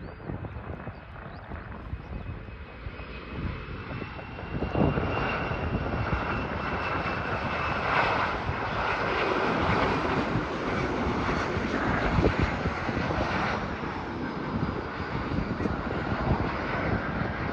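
SAS Bombardier CRJ900 regional jet on landing approach, passing low overhead. Its twin rear-mounted turbofans give steady jet noise with a high whine, growing much louder about five seconds in.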